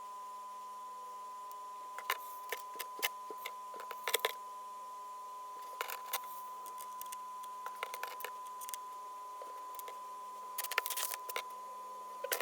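Small plastic miniature pieces clicking and tapping as a tiny toy sundae is put together: scattered light clicks, with a quick flurry of them near the end, over a faint steady hum.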